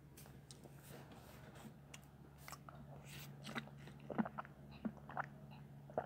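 Faint, irregular mouth clicks and lip smacks close to the microphone, over a steady low electrical hum.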